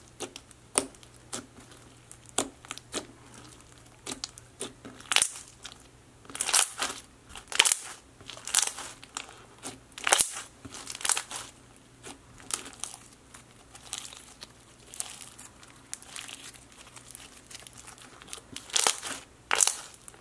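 Floam slime packed with foam beads being squished and pressed by hand: irregular clicky crackling and bubble pops, coming in clusters throughout.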